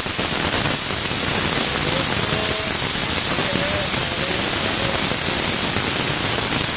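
Pressure cooker whistling under full pressure: a loud, steady hiss of steam venting past the whistle weight, with a faint wavering tone in it.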